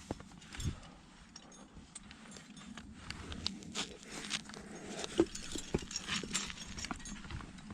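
A climber's breathing mixed with irregular scraping and rustling of clothing and gear against rock while working up a tight chimney, with scattered short clicks and scuffs.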